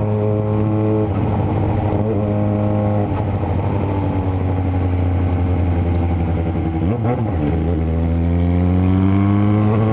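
Yamaha XJ6N's inline-four engine through a Power GP2 4-into-1 full exhaust, ridden at fairly steady revs; about seven seconds in the revs dip briefly, then climb steadily as the bike accelerates.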